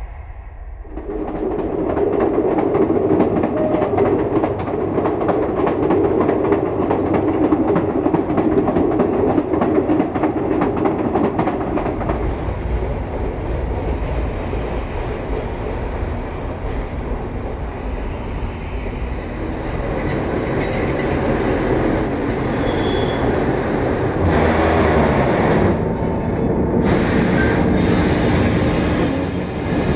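Train running on the rails: a steady rumble that comes in about a second in. In the second half, thin high-pitched wheel squeals ring out over it.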